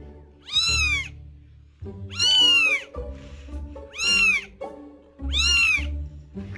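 Very young kitten meowing four times, high-pitched calls about a second and a half apart, each rising then falling in pitch: the distress cries of a kitten left outside the nest, calling for its mother.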